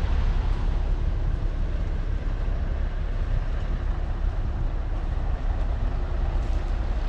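Wind buffeting the microphone: a steady, gusty low rumble with a broad hiss over it.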